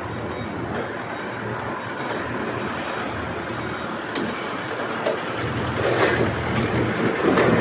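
Steady motor-vehicle rumble, with a few sharp clicks and louder swells in the last few seconds.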